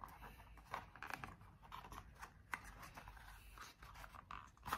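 Faint rustling and clicking of a small cardboard box being handled and opened by hand, with a sharper click near the end.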